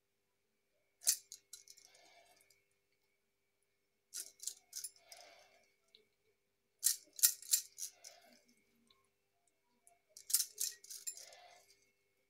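Short clusters of clinking and rattling, four times a few seconds apart, as a hand squeezes a lemon over a steel bowl of spiced fish pieces.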